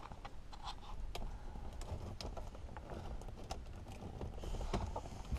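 Faint scattered clicks and light scraping of a Mercedes 300SD's plastic climate control panel being eased out of the dashboard by hand.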